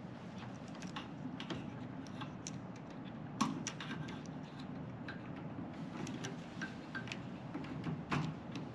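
Scattered small clicks and taps of microwave parts being handled as the light bulb in its clip-in holder is fitted back, the sharpest click about three and a half seconds in.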